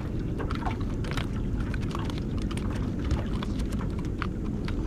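Water lapping against a small aluminium boat's hull under a steady low rumble, with scattered light clicks and knocks throughout.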